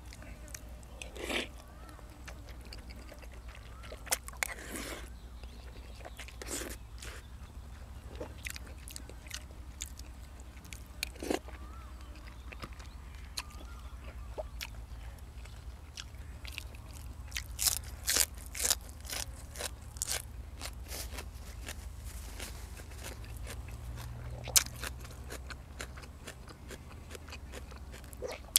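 Close-up chewing and biting as a man eats rice noodles in curry with chicken and raw vegetables, with scattered crisp crunches that come thickest about two-thirds of the way through, over a steady low hum.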